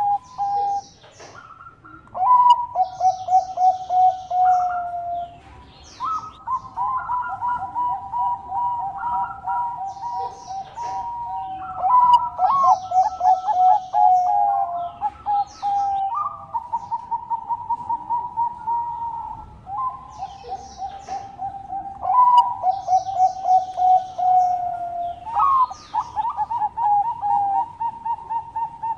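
Bangkok-bred zebra doves (perkutut) cooing in long runs of rapid, soft staccato notes, phrase after phrase with only short pauses, with brief higher chirps mixed in.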